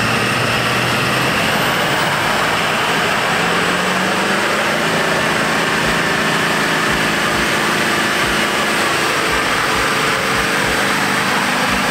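Burnout in a stock Chevrolet Silverado 2500HD with a Duramax diesel V8: the engine runs hard and steady while the rear tyres spin and squeal on the asphalt. The stock truck struggles at times to keep the tyres spinning.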